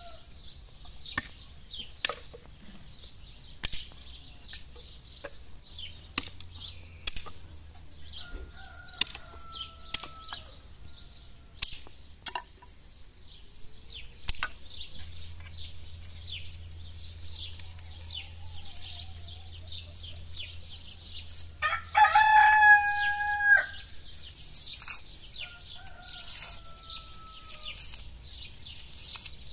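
Sharp chops of a long blade cutting firewood sticks, spaced a second or two apart, with small birds chirping throughout. A rooster crows loudly once, about two-thirds of the way through.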